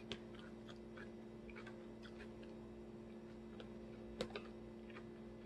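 Faint, scattered wet clicks and small crunches of close-miked chewing of a salad with apple pieces, with one louder click a little after four seconds, over a steady low hum.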